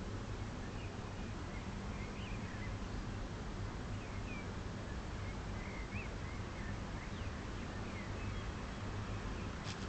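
Birds chirping now and then, short high calls faint over a steady hiss and low hum. There is a sharp click near the end.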